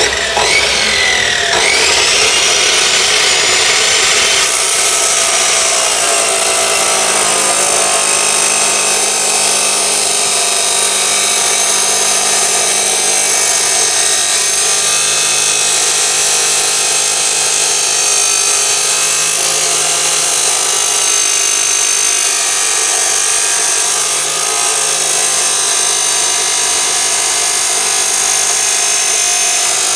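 Dekton DK-350 abrasive cut-off saw with a 355 mm wheel starting up, then grinding steadily and loudly through 5 mm steel angle iron.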